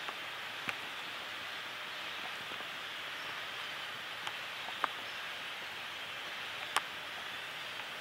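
Steady hiss of quiet swamp-woods ambience, broken by a few brief sharp ticks or snaps, the loudest about three-quarters of the way through.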